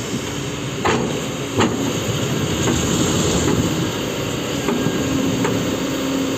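Heavy diesel machinery running steadily, with a few sharp metallic knocks: twice near the start and twice in the second half.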